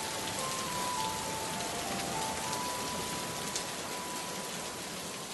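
Recorded rain sound effect: steady rain falling, with a few soft, slow held notes of background music over it.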